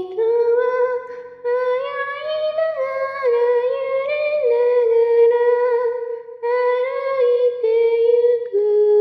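Outro music: a slow, wordless female vocal melody in a few long phrases, with gentle slides between notes.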